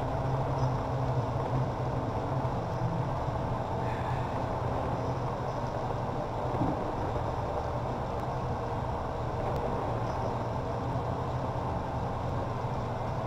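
Steady low machine hum with a rushing noise from brewhouse equipment, such as the electric brew kettle heating the wort and the room's fans. It holds level throughout, with no sharp events standing out.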